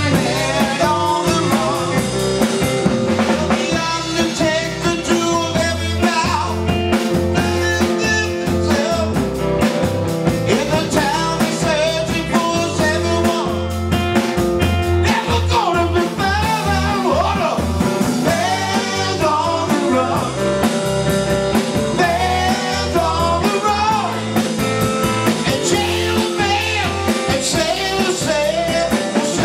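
Live band playing: electric guitar, electric bass and a Pearl drum kit keep a steady beat while a man sings.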